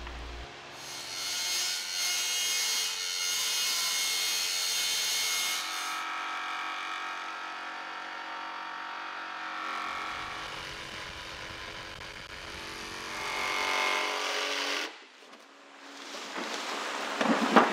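DeWalt cordless circular saw running as it cuts through a fiberglass panel, a steady motor whine whose tone shifts partway through the cut. It stops suddenly about fifteen seconds in.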